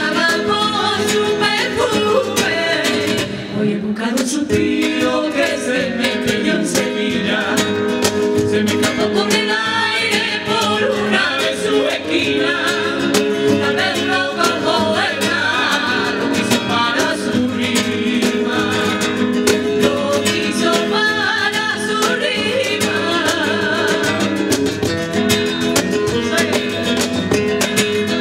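Live flamenco song: two women singing over a Spanish acoustic guitar, with flamenco hand-clapping (palmas) keeping the rhythm.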